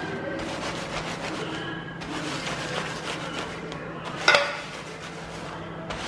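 Wooden rolling pin rolled back and forth over digestive biscuits in a plastic zip-lock bag, rubbing and crushing them into fine crumbs in repeated strokes. A sharp knock about four seconds in.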